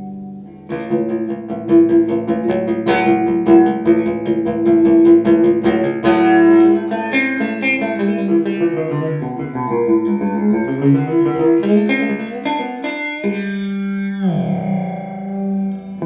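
Electric guitar played through an Electro-Harmonix Polychorus effects pedal. It opens with a run of fast picked notes, moves into a melodic phrase, and ends on a held chord that swoops steeply down in pitch.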